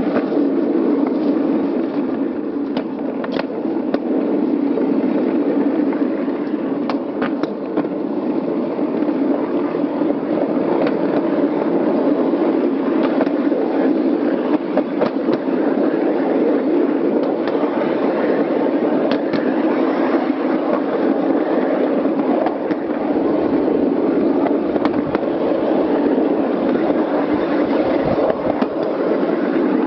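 A 7.5-inch gauge ride-on railway train rolling along its track: a steady rumble of wheels on rails, with occasional sharp clicks.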